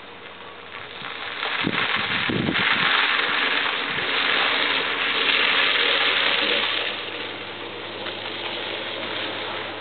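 Pickup truck running as it rolls across icy, packed snow: a steady engine under a loud rushing noise of tyres on the ice. The noise swells from about a second in and eases off after about seven seconds.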